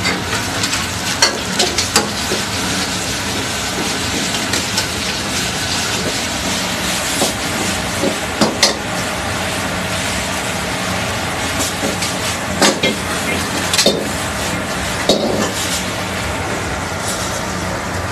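Butter chicken gravy sizzling in an iron pan over a high gas flame, under a steady rushing noise. A steel ladle stirs it and clanks sharply against the pan about a dozen times.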